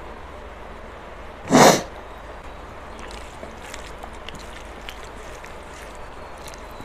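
One short, loud burst of breath from the eater about one and a half seconds in, with faint clicks of chewing and fingers working rice around it.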